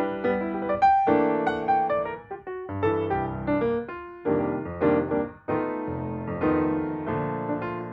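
Background piano music: notes and chords struck and left to ring, with no speech.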